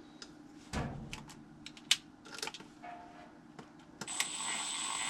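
Light metal clicks and clinks of parts being handled on a blower motor mount bracket. About four seconds in, a small cordless power tool starts running steadily with a high whine.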